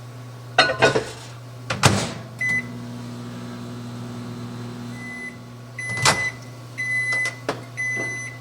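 Microwave oven being shut and started: door clunks and clicks, a keypad beep, then the oven humming as it runs. A string of high electronic beeps follows near the end, the last ones longer.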